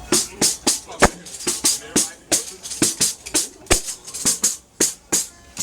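Hand percussion being played: a quick, uneven run of sharp strikes, about three to four a second, with bright shaker- or tambourine-like rattle, and two deeper drum hits, about a second in and near the two-thirds mark.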